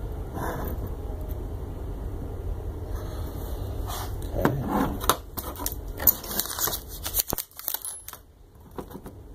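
Clicks and clatter of a printed circuit control board being handled and set down on a workbench, with rustling of a metallic anti-static bag, over a steady low hum that cuts off about seven seconds in.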